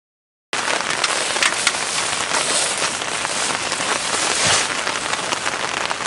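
Heavy rain falling on a tent's fabric, heard from inside: a dense, steady patter of drops that starts suddenly about half a second in.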